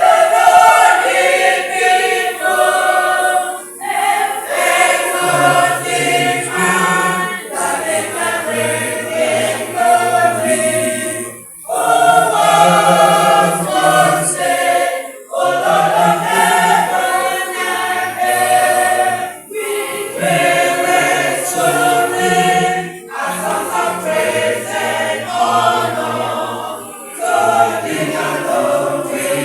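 A choir singing in several parts, in phrases of a few seconds with short breaks between them.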